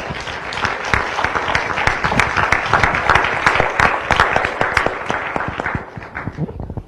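Audience applauding, swelling to a peak about halfway through and dying away near the end.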